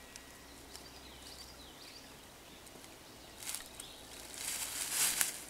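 Faint chirps of woodland birds, then louder rustling with crackly clicks near the end as a disc golfer steps and pivots on dry leaf litter into a throw.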